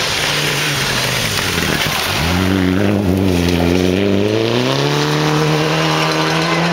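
Rally car's engine on a gravel stage: it lifts off and drops in pitch as the car slows into a hairpin, then accelerates out, the engine note rising steadily and holding high.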